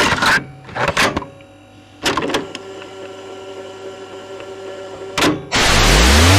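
Power electronics harsh-noise track: a few short mechanical whirring bursts, then a steady hum with a click. Near the end a loud wall of harsh static bursts in, with a low tone sweeping steadily upward beneath it.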